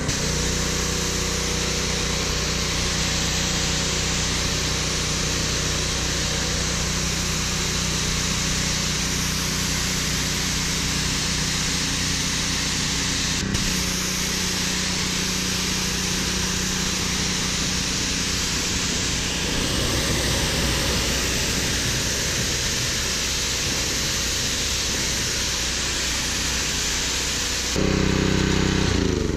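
Petrol-engine pressure washer running steadily while its 40-degree nozzle sprays a jet of water, rinsing snow foam off a car. Near the end the engine is heard up close and louder.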